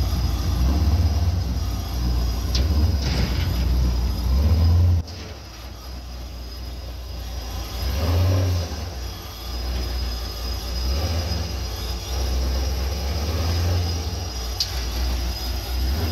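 Pontiac G8 GT's cammed, supercharged 6.0-litre V8 running at low speed with a deep, uneven rumble as the car is driven slowly onto a car-hauler trailer. The level drops suddenly about five seconds in.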